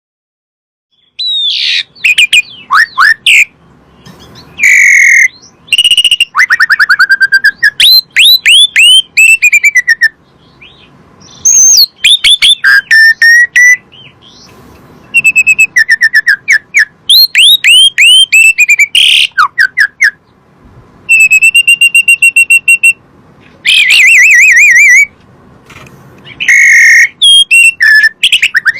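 Jalak suren (pied starling) singing a loud, varied song of whistles, quick runs of falling notes and buzzy trills in short phrases, starting about a second in.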